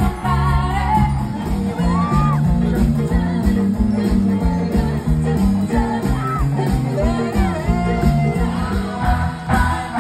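Live cover band playing: a woman singing over bass guitar, drums and keyboard with a steady beat.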